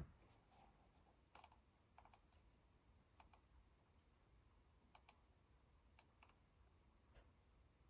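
Near silence broken by faint, scattered clicks of a computer mouse, about eight over several seconds, some in quick pairs.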